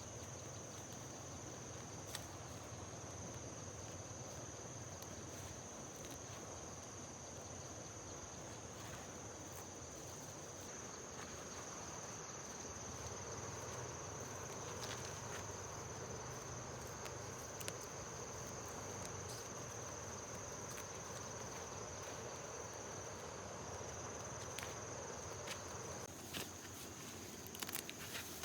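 Insects, likely crickets, chirring in one steady high-pitched drone, with a few light clicks and rustles, more of them near the end.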